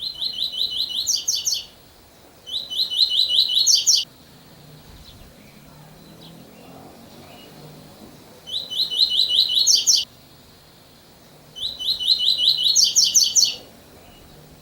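Double-collared seedeater (coleiro) singing the 'tui-tui' song type: four phrases of fast repeated notes, each about a second and a half long and ending in a few higher notes. Faint running water from a waterfall carries on underneath.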